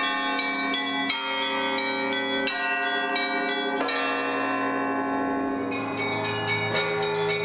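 Orthodox church bells ringing, struck a few times a second on bells of several pitches, their tones overlapping and ringing on.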